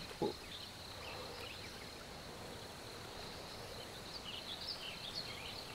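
Faint outdoor marsh ambience: a steady, high insect drone with small scattered chirps over a soft background hiss.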